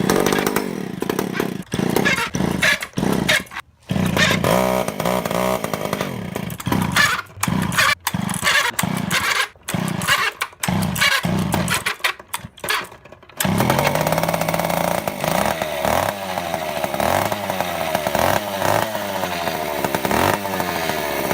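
Two-stroke chainsaw engine running in short broken stretches with sudden gaps. About thirteen seconds in it settles into steady running, revving up and down.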